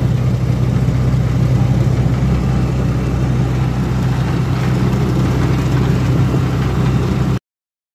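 Motorcycle engine of a tricycle running steadily on the move, heard from inside the sidecar with road and wind noise. It cuts off abruptly near the end.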